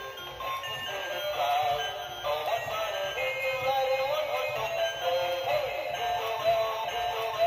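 NB Toys Dancing Santa figure playing a song with a sung melody through its small built-in speaker, a thin sound with little bass.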